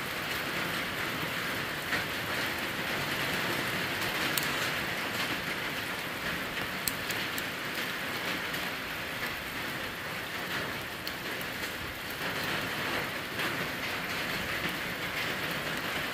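A steady, even hiss with a few faint, sharp clicks scattered through it.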